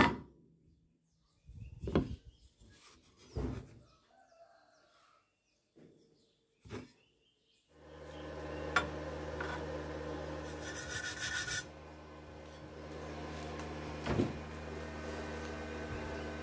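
A few separate knocks and scrapes of thin steel pieces and a welding rod handled on a wooden table. About eight seconds in, a steady electrical hum starts and runs on, with a short burst of hiss a few seconds later and one more knock near the end.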